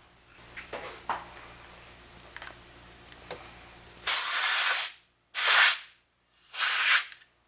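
Faint rubbing and handling of a foam sleeve on a fuel pump, then three loud hissing blasts of compressed air, each under a second, from a long-nozzle air blow gun pushed in between the foam sleeve and the pump to slip the sleeve on.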